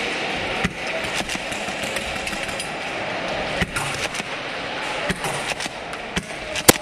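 Airsoft gunfire during indoor close-quarters play: scattered sharp clicks and cracks at irregular intervals over a steady hiss, with one loud crack near the end.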